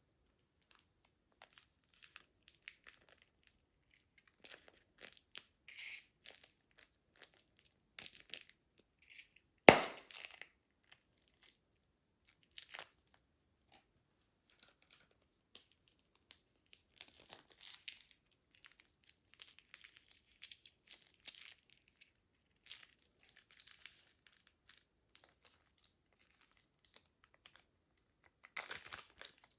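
Plastic bags being handled and crinkled, with scattered crackles throughout and one sharp snap about ten seconds in.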